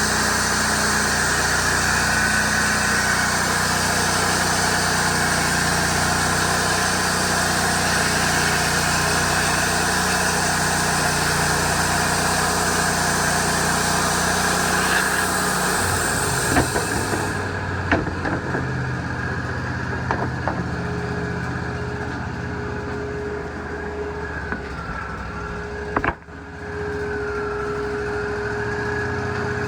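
Wood-Mizer LT40 hydraulic band sawmill running: a steady engine-and-saw noise with a high hiss that cuts off suddenly a little over halfway through. After that come several knocks and a steadier engine hum with a held tone and a wavering whine.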